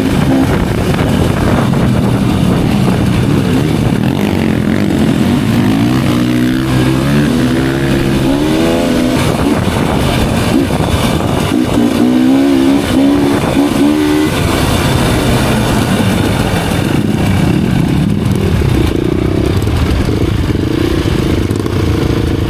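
Dirt-bike engine running on a trail, its pitch rising and falling as the throttle is worked in two spells about a third and two-thirds of the way through, with a steady rumble between.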